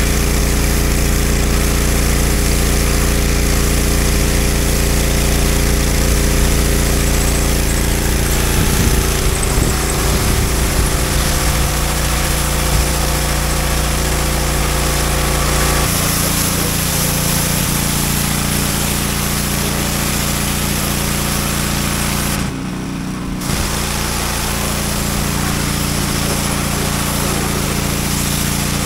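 Pressure washer running steadily while water sprays from the wand. The machine's note shifts a little past halfway through and dips briefly about three-quarters of the way through.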